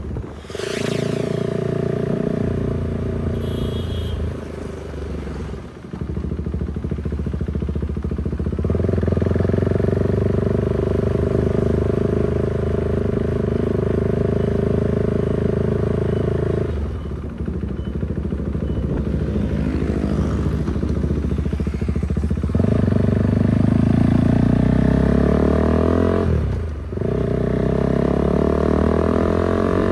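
Husqvarna Svartpilen 401's single-cylinder engine running under way, heard from the handlebars, with its pitch dropping and climbing again at several gear changes.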